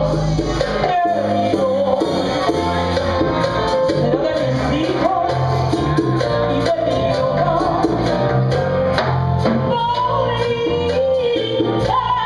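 Live Latin band: a woman sings into a microphone over electric bass, drums with cymbals, and keyboard.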